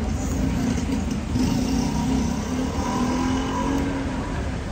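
A motor vehicle engine running with a steady low rumble, its pitch drifting slightly up and down around the middle.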